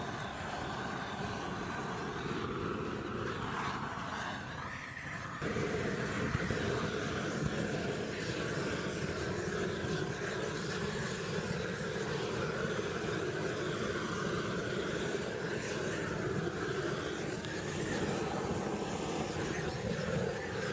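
Gas blowtorch flame burning with a steady rushing hiss as it singes the hide of a cow's head and hooves; it gets louder about five seconds in.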